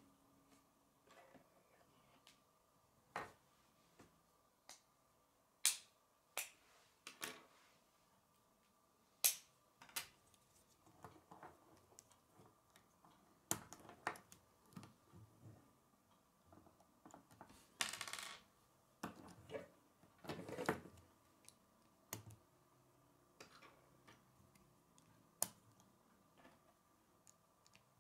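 Plastic K'nex connectors and rods clicking as they are snapped together by hand, in irregular sharp clicks. About two-thirds of the way in there are a couple of longer rattling handling sounds.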